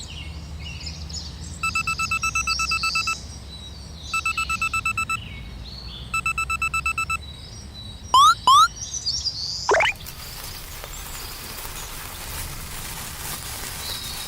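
Electronic ringing trill, a fast pulsing tone in three bursts of about a second each, over bird chirps. Then come two quick rising whistle sweeps and a longer rising sweep, and a steady hiss in the last few seconds.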